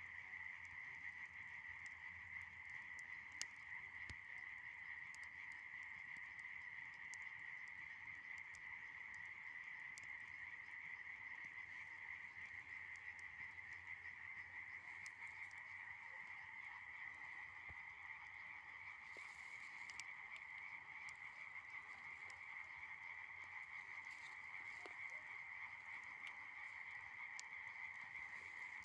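A steady, dense chorus of frogs calling without a break, with faint scattered crackles and pops from a fire of dry branches and grass.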